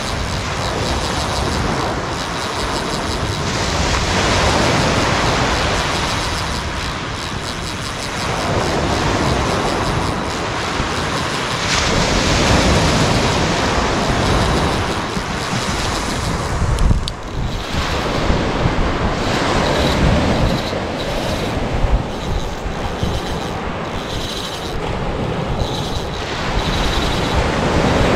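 Waves breaking and washing up a pebble beach, with wind on the microphone; the surf swells and eases every few seconds.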